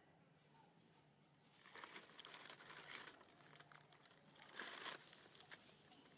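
Faint crinkling rustle in two stretches, one about two seconds in and a shorter, louder one near five seconds, over a low steady hum.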